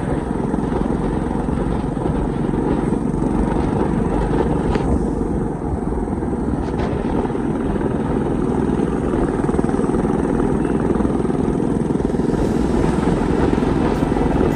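Motorcycle running steadily on the move, a dense, even low rumble.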